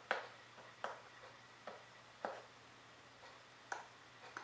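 Sharp, uneven plastic clicks as fingers work the orange nozzle of a squeeze bottle of wood glue, about six in all.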